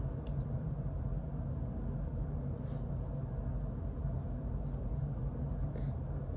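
Room tone: a steady low hum with a faint hiss, with a couple of faint, brief soft noises.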